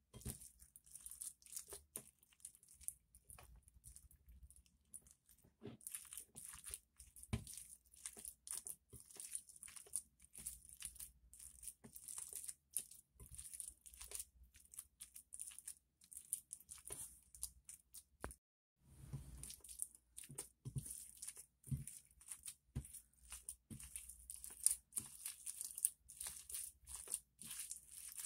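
Glossy slime, mixed with makeup and glitter, being squished and pulled by hand: a dense run of irregular sticky crackles and small pops, pausing briefly about two-thirds of the way through.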